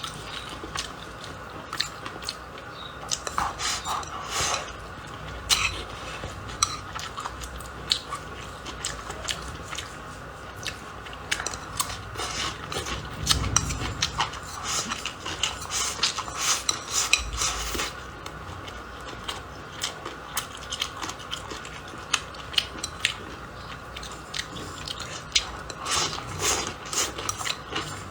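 Utensils clinking and scraping against a pan or dishes in quick, irregular clicks, with a few duller knocks.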